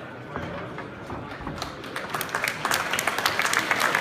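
Crowd applauding in a hall, the clapping starting about one and a half seconds in and growing louder.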